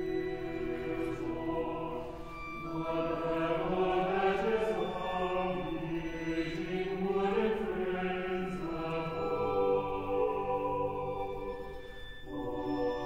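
Choir and orchestra performing slow, sustained chords. The sound swells about two seconds in, eases off near the end, and a new chord enters just before it closes.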